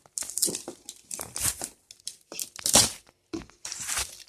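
Packaging being torn and crinkled by hand in a run of irregular rustling, ripping bursts, the loudest nearly three seconds in, while struggling to get the box open.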